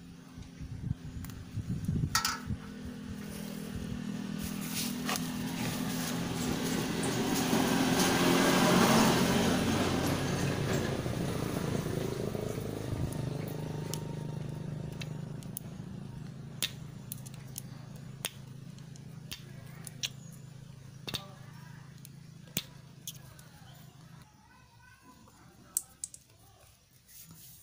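A motor vehicle passing close by, with a low engine hum: it grows louder to a peak about a third of the way in, then slowly fades away. Light clicks and taps of parts being handled in a metal tray come through it, most of them in the second half.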